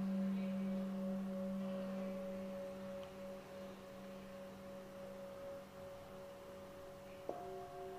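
Singing bowls ringing during a sound-healing session: a low, steady hum with a few higher overtones fades slowly. About seven seconds in, a bowl is struck again and rings out with several higher tones.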